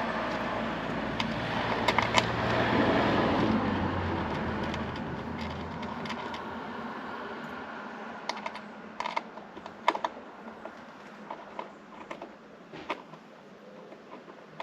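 Small sharp clicks and taps of screws, metal washers and plastic screen fittings being handled and pushed into place, scattered irregularly through the second half. Before that, a rushing noise swells and dies away over the first several seconds.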